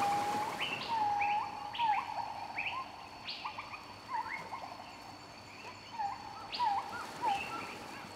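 Birds calling: short whistled notes, several sliding up at the end, repeated about once or twice a second, over a faint steady high tone.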